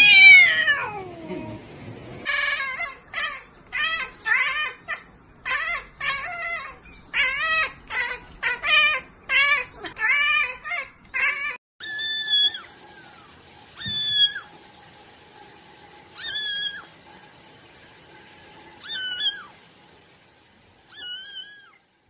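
Cats calling: a long falling yowl, then a run of short meows about one and a half a second. Then a young tabby kitten meows loudly, five high-pitched meows about two seconds apart.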